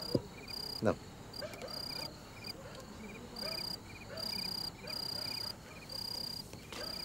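Crickets chirping in a high trill that comes in repeated pulses, with a fainter, lower three-note chirp repeating about twice a second. Two short knocks sound in the first second.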